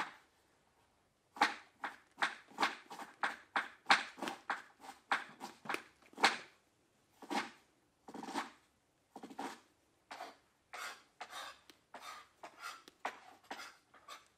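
A dancer's movements against the floor: an irregular series of short brushing and scraping sounds, several a second at first and sparser toward the end.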